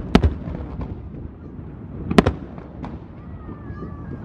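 Aerial firework shells bursting: a sharp bang just after the start and another loud one about two seconds in, with smaller pops between.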